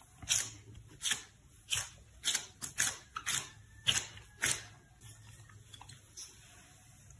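Gloved hand pressing and patting a ball of pastry dough flat on a floured wooden cutting board: about nine short, crisp pats in the first four and a half seconds, then quieter handling.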